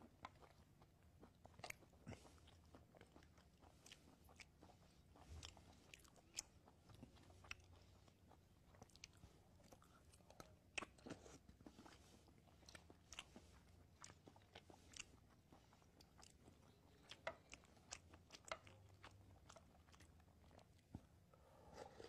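Faint sounds of a man eating with a spoon from a plate: irregular sharp clicks and scrapes of the spoon against the plate, along with chewing.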